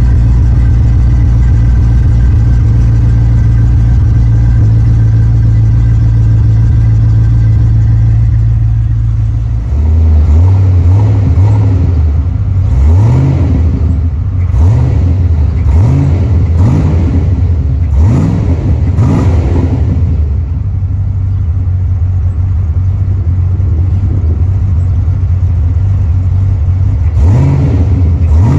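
Fox-body Ford Mustang engine idling steadily after sitting unstarted for about two and a half years. About halfway through it is blipped in a string of quick revs, then settles back to idle, with one more rev near the end.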